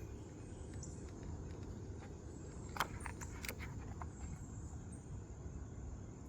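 Steady low background rumble with a few short clicks and rustles, the loudest nearly three seconds in, and a faint high steady tone throughout.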